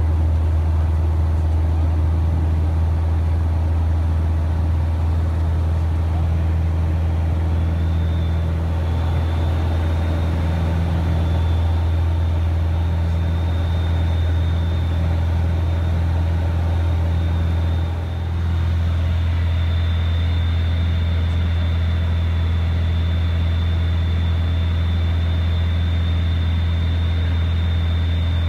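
Socata TB-9 Tampico's four-cylinder Lycoming O-320 engine and propeller at full takeoff power through the takeoff roll and climb-out, heard inside the cabin as a steady low drone. A faint, steady high whine joins it about a third of the way in.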